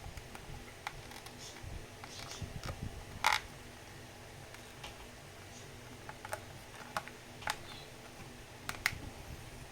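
Irregular light clicks and taps of plastic figure parts and packaging being handled, about eight in all, the loudest about a third of the way in.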